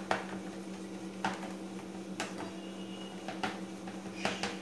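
Small steel bowl pressing and patting sticky barfi mixture flat in a steel plate: soft irregular taps and light scrapes about once a second, over a steady low hum.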